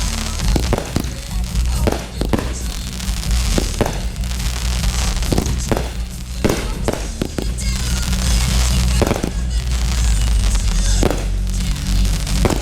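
Fireworks display: aerial shells bursting in a string of sharp bangs, roughly one every second or so, over music with a steady heavy bass.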